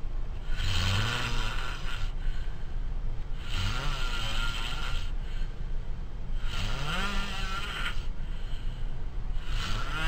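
A person snoring in their sleep, one long snore about every three seconds, with a low pitched rumble rising in each breath.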